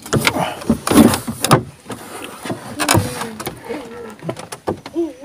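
Irregular knocks, clicks and rattles of fishing gear being handled aboard a small wooden boat, busiest in the first two seconds, with a brief murmur of a voice later on.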